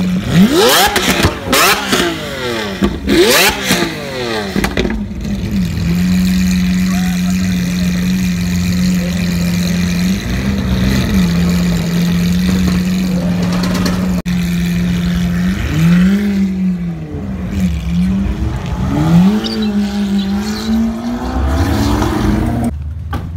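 Lamborghini Aventador LP700-4's V12 through an Armytrix header-back valvetronic exhaust, revved hard in quick blips for the first few seconds. It then idles steadily, with one short blip, and is revved several more times near the end.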